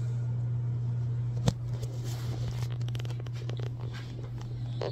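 A steady low hum with one sharp click about a second and a half in, followed by faint scattered clicks and rustling as the camera is handled.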